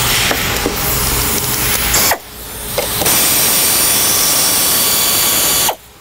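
Pneumatic ratchet running with a loud hissing whir as it loosens fasteners on the engine's air intake assembly. It stops briefly about two seconds in, runs steadily again, and cuts off just before the end.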